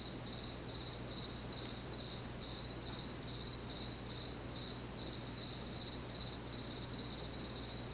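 Cricket chirping steadily, a high pulsing trill repeating several times a second, over a low steady electrical hum.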